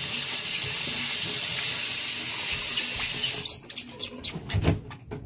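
Bathroom tap running steadily into a sink, shut off about three seconds in, followed by a few short clicks and knocks of items being handled at the counter.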